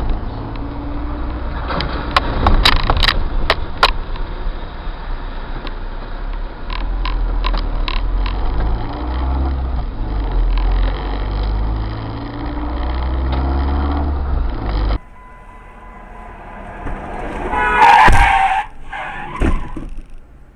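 A car's road noise heard from a dashcam: a steady low rumble with scattered sharp knocks and clicks. After a cut, a quieter stretch, then a short loud screech and a couple of hard knocks about three seconds later, typical of a crash into the back of a truck.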